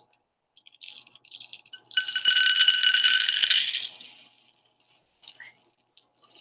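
Wild bird seed poured from a plastic measuring cup into a cut plastic 2-liter bottle: a light patter at first, then a dense rattling rush of seeds about two seconds in that lasts about two seconds and trickles off.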